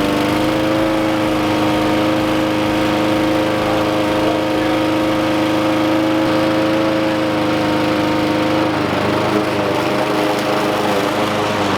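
Honda 5.5-horsepower gas lawn mower engine running steadily just after being pull-started, its pitch dropping slightly about nine seconds in.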